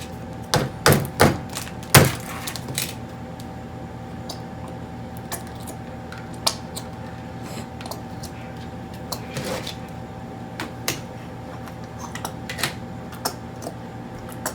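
Scattered clicks and knocks of utensils and containers against plastic bowls and the table while soap and rice flour are stirred together, busiest in the first few seconds, over a steady hum.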